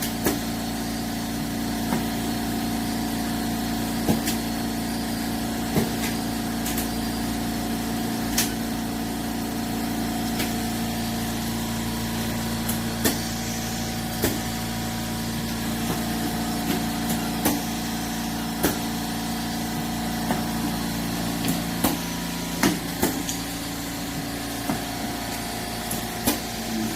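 Makgeolli bottle-filling line running: a steady motor hum, with sharp clicks or knocks every second or two that come closer together in the second half.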